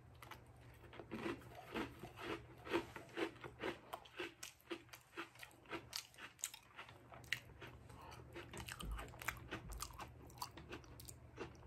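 A person chewing a bite of Oreo cookie dipped in sour cream: faint, irregular crunching, a few soft crunches a second.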